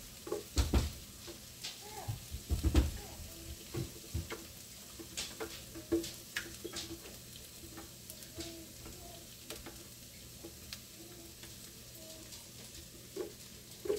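A spatula scraping and knocking inside a blender jar as a thick blended sauce is scraped out into a hot frying pan, in irregular clicks and taps that are loudest in the first few seconds. Food sizzles in the pan underneath.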